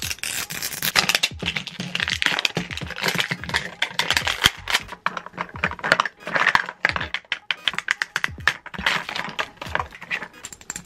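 Close-up crinkling, clicking and crackling of a Mini Brands capsule being opened by hand: the sticker seal peeled off the plastic ball, its plastic segments opened, and the crinkly plastic wrappers inside handled and pulled out. The sound is dense and irregular throughout.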